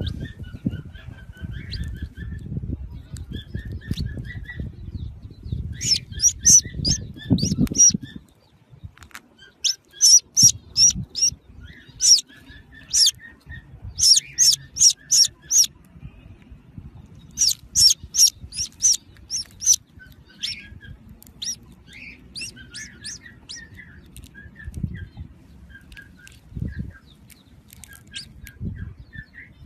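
Small birds chirping: quick runs of sharp, high-pitched chirps, several a second, come in bursts, with softer, lower chirps in between. A low rumbling noise runs under the first eight seconds or so.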